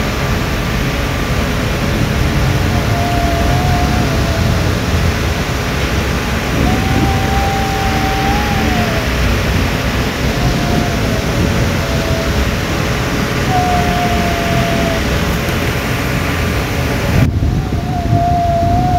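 Underwater ambience: a steady deep rushing noise, over which a thin high moaning call rises and falls about six times, each call a second or two long. Near the end the upper hiss cuts out abruptly while the rushing and the calls go on.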